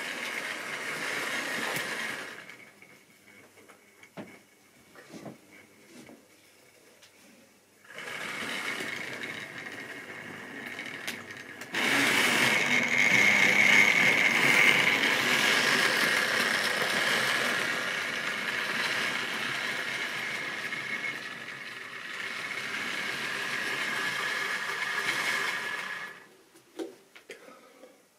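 Model railway locomotive running on track: the electric motor whines steadily with the wheels rattling along the rails, much louder from about twelve seconds in as a diesel shunter passes close by. The running stops about two seconds before the end, leaving a few light clicks.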